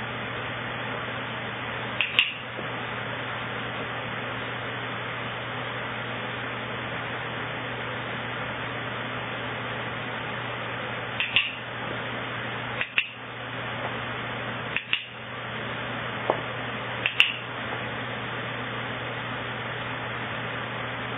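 A dog-training clicker clicked about six times, several as quick double clicks, marking the dog's correct responses. Under it runs the steady whir of an electric fan.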